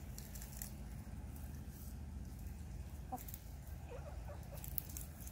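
Backyard laying hen giving a few short, soft clucks, once about three seconds in and a few more about a second later, over a faint low rumble.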